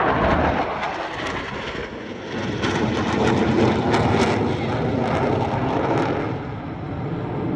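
Jet engine noise from the Blue Angels' four F/A-18 jets flying in close formation: a loud, steady rush that dips briefly about two seconds in, then swells again with a crackle.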